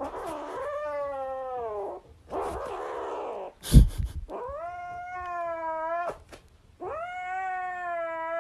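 A cat yowling in long drawn-out calls, four of them, each rising and then holding its pitch. A sharp knock about four seconds in is the loudest moment.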